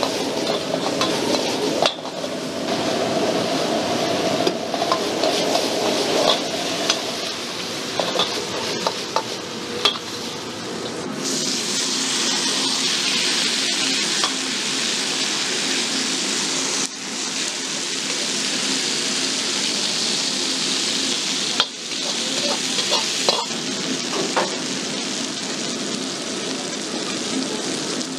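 Stir-frying in a wok: a steel ladle repeatedly scrapes and clinks against the wok over the steady sound of a high-output gas wok burner, with food frying. About eleven seconds in, a louder, higher steady sizzle takes over, from food on a hot cast-iron sizzling plate.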